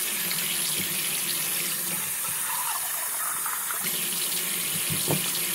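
Kitchen tap running steadily, its stream splashing onto a wire rack in a stainless steel sink.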